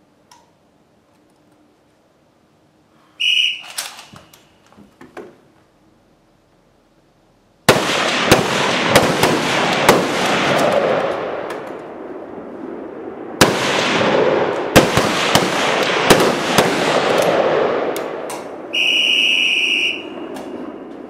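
A short whistle blast starts a timed exposure. About four seconds later a relay of service rifles opens fire, with many overlapping, echoing shots for about ten seconds. Near the end a long whistle blast signals that the 15-second exposure is over.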